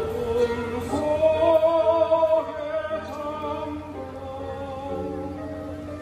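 Mixed choir of women's and men's voices singing a slow song in Korean, with long held notes in several parts; louder for the first two seconds or so, then softer.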